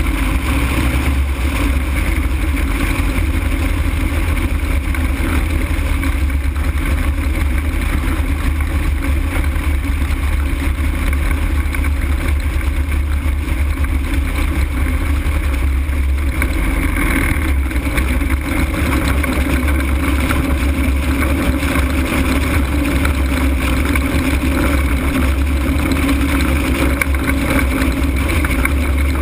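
Loud, steady rush of wind over an open-frame ultralight and the camera's microphone in flight. About halfway through, the engine is shut down and the propeller comes to a stop, leaving the airflow noise of the aircraft gliding.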